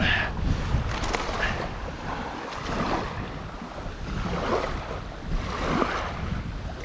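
Gusty wind buffeting the microphone over small surf waves washing up onto the beach.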